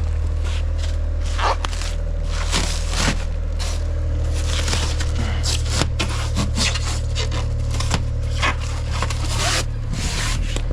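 Steady low machine drone with irregular scraping and crunching knocks over it, about a dozen in all.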